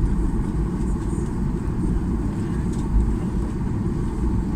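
Steady low rumble inside a Boeing 737-800's cabin before takeoff: engine and cabin-air noise, with a few faint clicks.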